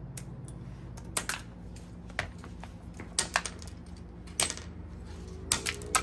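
Scattered sharp clicks and taps of hand work on a motorcycle frame, about nine in irregular spacing, some in quick pairs and the loudest near the end, over a steady low hum.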